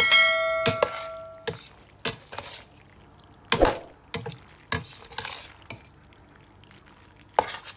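Metal utensil stirring cooked shell pasta in a metal pot, knocking and scraping against the pot. It opens with a ringing clink that hangs on for about a second, then irregular short knocks and scrapes follow.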